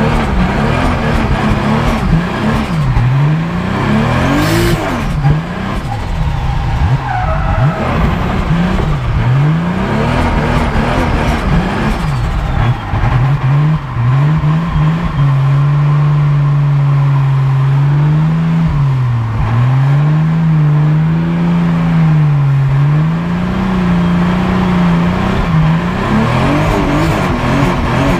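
The 3.4-litre Toyota Supra drift car's engine heard from inside the cabin: the revs climb and drop again and again as the throttle is worked, then hold high and nearly steady for about ten seconds in the second half before swinging again. Tyre skid noise runs under it.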